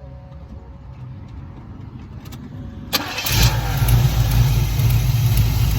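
Car engine, likely the box Chevy Caprice's, cranked back up: a few clicks, then it catches about three seconds in and runs on steadily and loudly.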